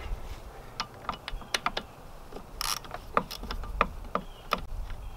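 Hand socket ratchet clicking in short, irregular strokes as it turns a bolt out of an outboard motor's lower unit, with a brief burst of rapid clicking about halfway through.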